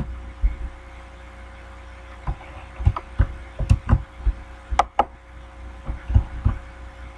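Computer mouse clicking: about a dozen short, irregular clicks, some in quick pairs, over a faint steady hum.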